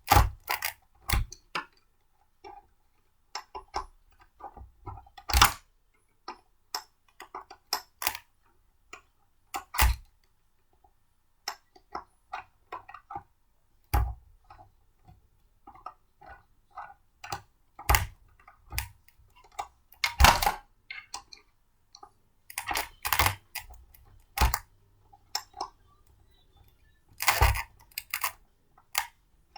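Blender parts being handled and fitted together: irregular clicks and knocks, a few louder ones, with short quiet gaps between.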